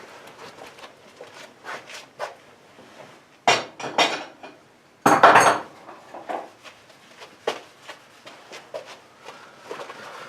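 Light clinks and knocks of metal tools and parts being handled, with a few louder clattering knocks a little before the middle.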